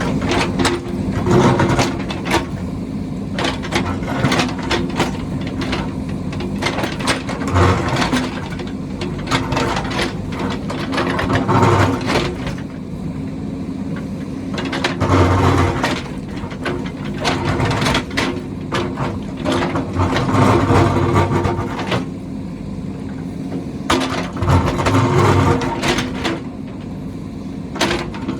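JCB backhoe loader's diesel engine running steadily and surging under load about seven times, with repeated clanks and knocks as the machine digs.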